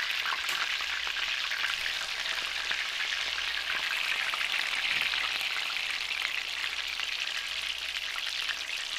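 Chapli kabab patties shallow-frying in hot oil: a steady, dense crackling sizzle full of tiny pops, with a slotted spoon moving them in the pan.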